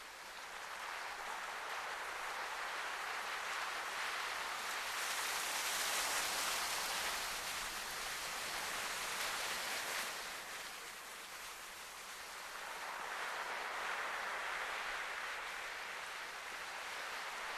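Sea surf washing against a rocky shore: a steady hiss that swells and eases several times, loudest about six seconds in and again near the end.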